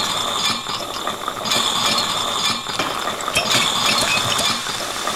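A mechanism ratcheting and clicking, with a dense rattling layer that swells and eases about every two seconds.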